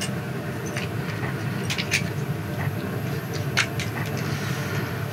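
A steady low mechanical hum, with a handful of short light clicks and taps; the sharpest come about two seconds and three and a half seconds in.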